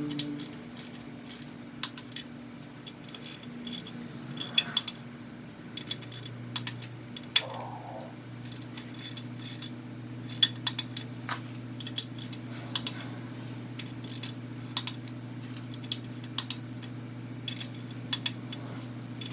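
Scattered sharp metallic clicks and clinks from a torque wrench as the LS1's intake manifold bolts are re-torqued to 89 inch-pounds, over a steady low hum. The bolts had loosened after the first torquing and are not seating.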